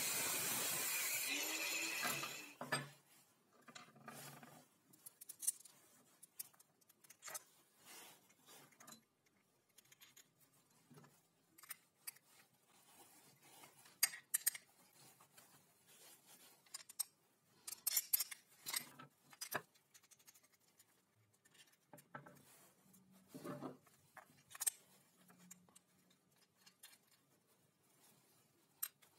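Angle grinder cutting through a steel bar, a loud steady grinding that stops about two seconds in. Then scattered faint metal clicks and scrapes as a small open-end spanner turns a nut on a bolt through a wooden block.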